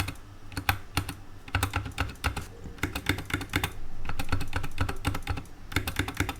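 Typing on a SkyLoong GK64XS mechanical keyboard with Kailh Brown tactile switches and PBT keycaps: quick, uneven runs of keystrokes with short pauses between them.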